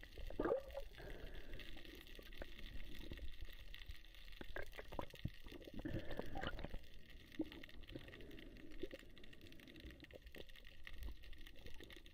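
Underwater sound picked up by a camera in its housing: muffled water movement with scattered clicks and knocks, and a couple of louder swirling bursts, about half a second in and again around six seconds in, as a speared fish is struggled up.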